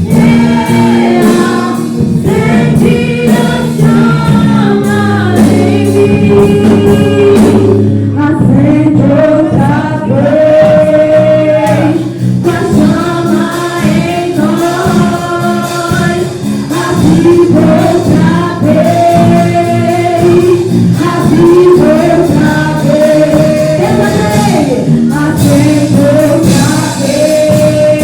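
Church worship team singing a gospel song together, several voices, over steady instrumental accompaniment.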